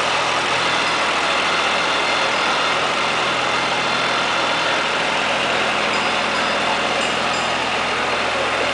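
Old farm tractor's engine running at a steady, low speed as it tows a loaded hay wagon, an even drone that holds unchanged throughout.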